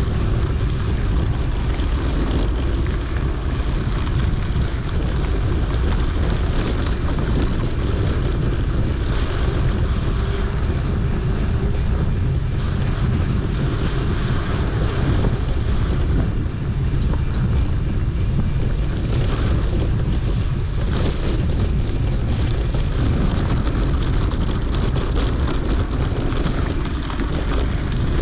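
Steady wind buffeting on the microphone of a camera riding on a moving mountain bike, over a rolling rumble of tyres on a dirt trail with scattered small clicks and rattles.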